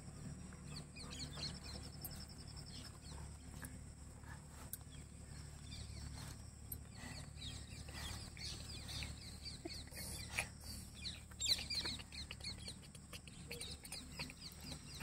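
Chickens clucking and birds chirping in short scattered calls, fairly quiet, over a low steady hum.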